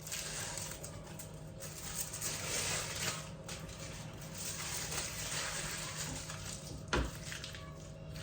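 Objects being handled, with scraping and rustling and one sharp knock about seven seconds in, over a steady low hum.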